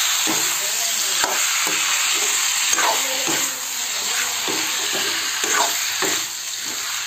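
Raw pork pieces and potato chunks sizzling in hot oil in a kadai, with a metal spatula scraping the pan and turning them in repeated, irregular strokes.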